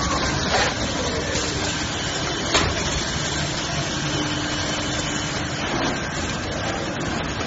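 Kitchen towel paper production line machinery running with a steady mechanical noise, with one sharp click about two and a half seconds in.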